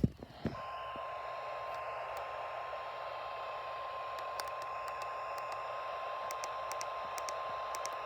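NOAA Weather Radio warning alarm tone: a single steady high beep near 1050 Hz over radio static hiss. It begins about half a second in, after a brief loud crackle at the very start.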